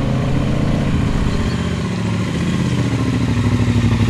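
Triumph Speedmaster motorcycle engine running as the bike approaches, growing louder near the end with its note rising, over the hiss of tyres on the wet road.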